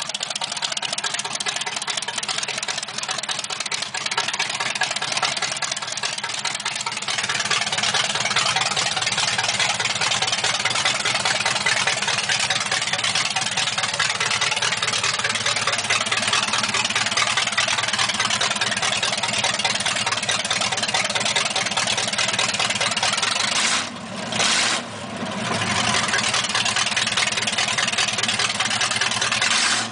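Small-block Chevy 283 V8 idling through short open headers, a steady, loud exhaust note. It grows louder about seven seconds in and dips briefly twice near the end.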